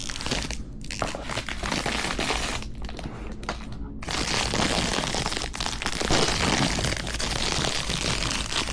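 Plastic packaging crinkling and crackling as it is opened and handled to get the plush figure out, in irregular rustles at first and then continuously from about halfway in.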